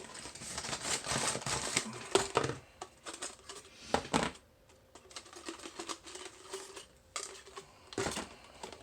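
Tweezers and small metal parts clicking and scraping against an Abloy Classic cam lock as it is taken apart: a busy run of clicks and scrapes for the first two seconds or so, then a few single sharp clicks.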